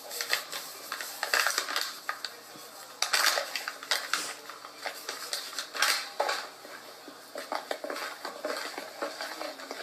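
Spoon stirring in a plastic mixing bowl: irregular scraping with sharp knocks against the bowl's sides, mixing in instant pudding.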